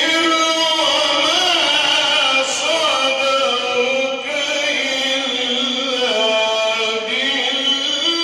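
A man chanting Quran recitation in the melodic mujawwad style, holding long ornamented notes that waver and glide in pitch.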